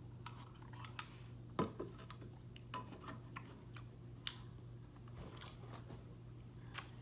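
Light clicks and taps from a can of sparkling water being handled, with a louder knock about a second and a half in and a sharp click near the end, over a low steady hum.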